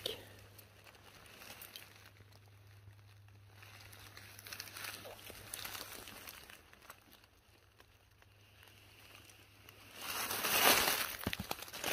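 Dry fallen leaves rustling and crunching underfoot on a thick leaf litter, faint at first, then loud crunching and rustling for the last two seconds.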